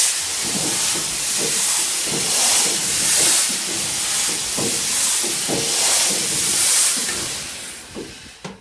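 EMD GP10 locomotive's two-stroke diesel engine being cranked over with its cylinder test cocks open: a loud hiss of air and moisture purged from the cylinders, pulsing in a steady rhythm a little faster than once a second, with low knocking underneath. The cranking stops near the end.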